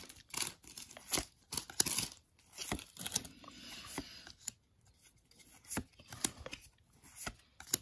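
Trading cards being slid one at a time from the front of a stack to the back: a series of short card snaps and rustles at an uneven pace.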